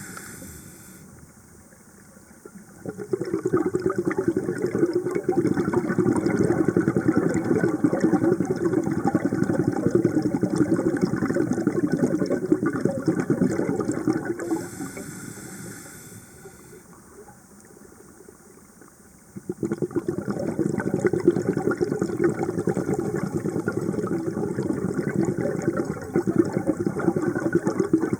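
A scuba diver breathing through a regulator underwater. Two long, loud stretches of bubbling exhaled air start about three seconds in and again near twenty seconds, with a short higher hiss between them around fifteen seconds.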